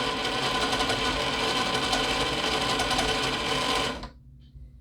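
Redcat Gen 8 RC crawler's electric motor and drivetrain running steadily with the tires spinning, in stock front portal gearing: a constant whirring gear whine that cuts off about four seconds in.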